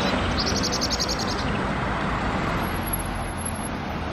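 Steady street traffic noise as a red double-decker bus drives by, with a short run of bird chirps from about half a second to a second and a half in.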